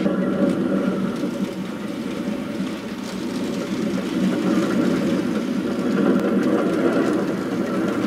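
A model train running on the layout track: a steady rolling rumble of wheels on rail and the locomotive's motor, as a model Pennsylvania Railroad electric locomotive pulls passenger cars past.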